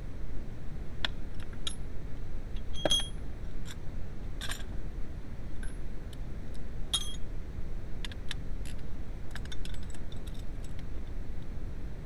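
Metal hand tools clinking as they are handled: scattered sharp metallic clicks and clinks, some with a short high ring. The loudest come about three seconds in and about seven seconds in, with a quick run of small clicks later on, all over a steady low rumble.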